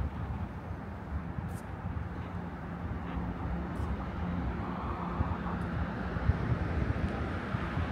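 Night-time city street traffic: a steady low rumble of engines, with a vehicle's noise growing louder over the second half.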